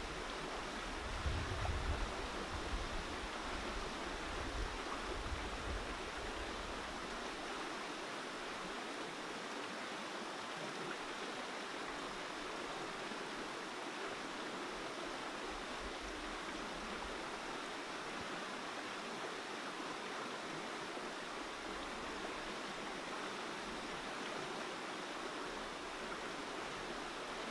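Fast-flowing river rushing steadily, an even water noise with no break. A few low rumbles come through in the first several seconds.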